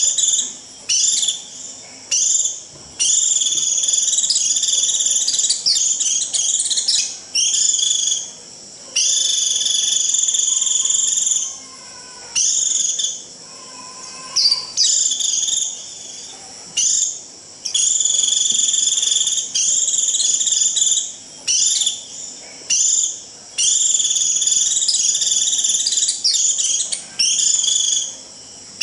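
White-eye (vành khuyên) giving its shrill 'rít' flock-calling song: long, high, buzzy trilled notes of one to two seconds each, repeated with short gaps.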